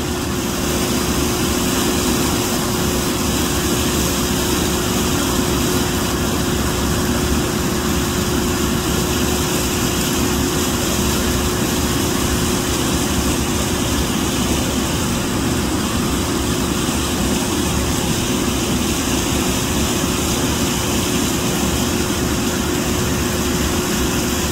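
Rushing discharge water churning steadily at a small hydropower plant's outflow, with a constant mechanical hum running under it.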